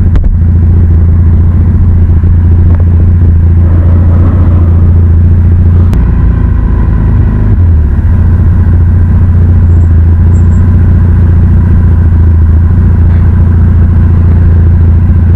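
Motorcycle engine running steadily as it is ridden along the road, heard from the rider's position as a loud, deep, continuous drone. The sound shifts briefly about six seconds in.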